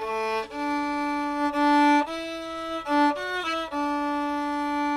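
Background music: a solo violin melody of held notes, with a quick run of short notes about three seconds in before settling on a long held note.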